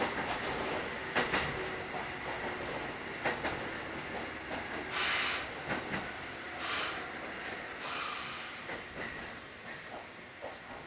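Kotoden 1080 series electric train car (ex-Keikyu 1000 series) running, heard from inside: a steady rolling noise with wheels clicking over rail joints. About halfway through come three short bursts of hiss, and the running sound eases off a little toward the end.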